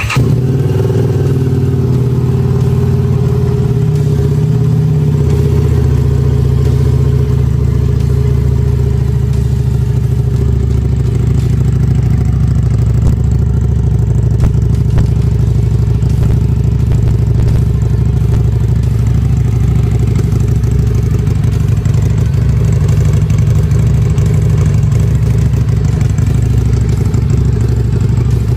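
Harley-Davidson Street 750's V-twin with a Two Brothers Racing slip-on exhaust idling steadily after starting, with a small rise in engine speed about four seconds in.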